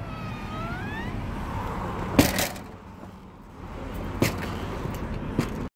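RV entry door squeaking open with a rising squeak, then a sharp clack about two seconds in as it shuts, and another knock a couple of seconds later, over a steady low rumble. The sound cuts off suddenly near the end.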